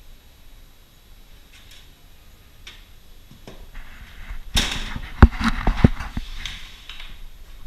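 Handling noise: a few scattered clicks, then a quick clatter of sharp knocks and clicks about two-thirds of the way in, with a rustling hiss around them.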